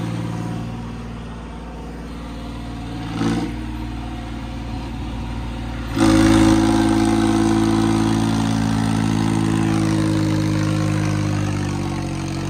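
Diesel tractor engine running steadily, then revved up sharply about six seconds in and held at high revs, easing off slightly toward the end.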